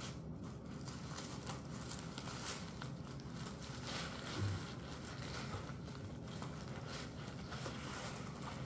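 Soft, irregular rustling and crinkling of packaging being unwrapped by hand as a purchase is taken out of its box.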